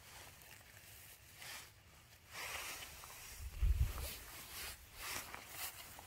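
Rustling of wet grass as a gloved hand works among the stems to pick mushrooms, in short scattered scrapes, with a dull low thump a little past the middle.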